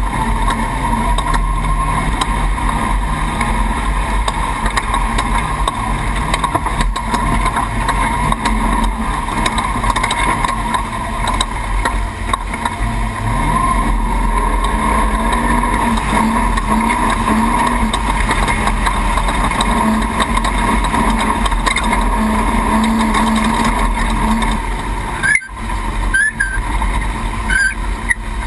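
Off-road race truck running hard over rough terrain: a steady loud engine and road din, with the engine note rising and falling as the throttle changes.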